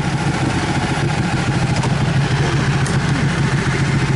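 Ducati 1299 Panigale S's L-twin engine running at a steady low speed while the bike moves slowly, with wind and road noise over it.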